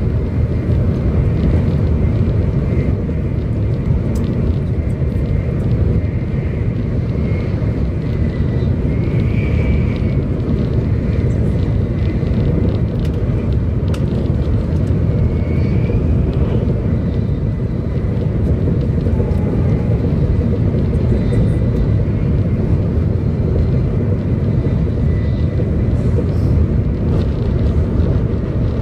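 Steady rumble of a 700 series Shinkansen running at speed, heard inside the passenger cabin: wheel, track and running noise, with faint high whistling tones over it.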